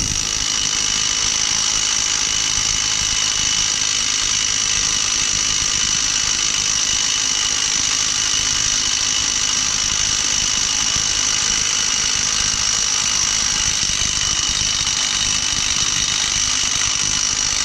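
Cordless impact wrench hammering steadily and continuously on a rusted, stuck wheel-bearing nut, which does not break loose.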